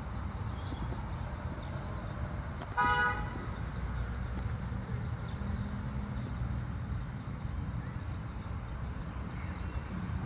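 Steady street traffic noise with one short car horn toot about three seconds in, the loudest sound.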